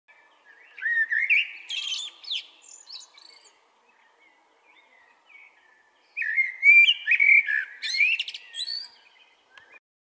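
Male common blackbird singing: two fluty, warbling phrases a few seconds apart, with high squeaky notes mixed in.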